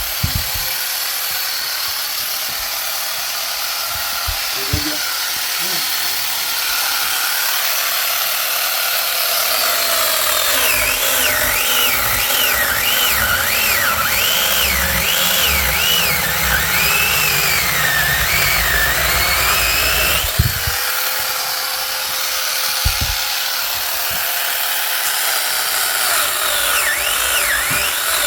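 A power saw, most likely a chainsaw, running steadily while cutting firewood logs, its pitch repeatedly dipping and rising as it bites into the wood, with a few short knocks.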